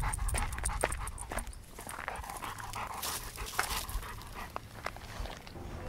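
A dog panting, with many small clicks and ticks scattered through it.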